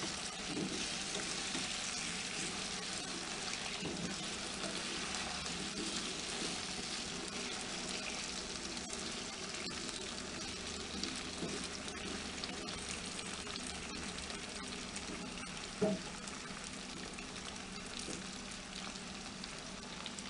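Diced raw potatoes sizzling in hot oil in a frying pan, stirred and scraped with a wooden spatula. The sizzle fades a little toward the end, and a single knock comes about three-quarters of the way through.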